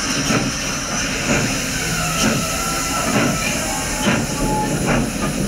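Steam train running: a steady rush of steam and running noise with irregular knocks.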